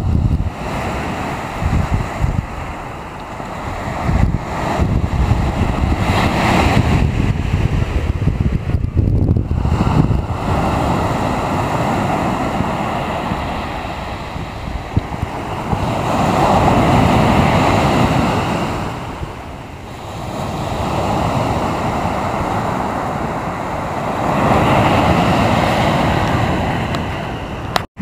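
Sea waves surging and washing on the shore, swelling louder and falling back every several seconds, with wind rumbling on the microphone.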